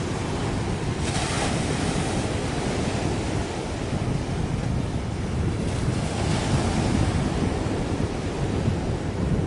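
Wind rumbling on the microphone over the wash of sea waves, a steady low noise with a louder hissing wash about a second in and another around six seconds.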